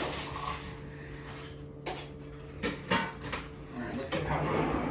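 A few light knocks and clicks over a steady low hum, with a brief rustling noise near the end.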